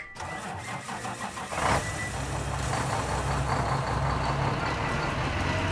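Heavy construction-vehicle engine sound effect, laid over toy vehicles driving off: quieter at first, then swelling about two seconds in to a steady low engine rumble.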